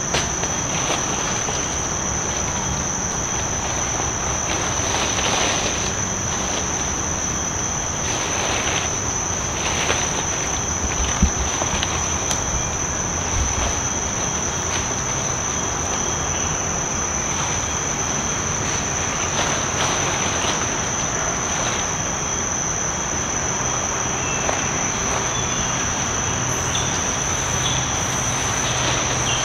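Insects in the forest keep up a steady, high-pitched, unbroken drone on a single note over a broad background hiss. A single sharp click comes about eleven seconds in.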